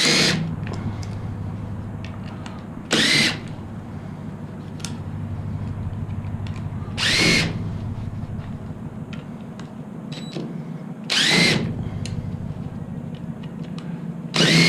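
Impact driver running in five short bursts, about three to four seconds apart, each with a whine that rises and then falls, as it works on the fasteners of aluminum pool-net poles being stripped for scrap.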